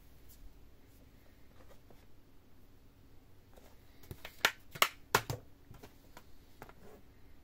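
Plastic DVD cases being handled: three sharp plastic clicks in quick succession about halfway through, from a case being snapped shut and put down on a stack of cases, with faint light taps around them.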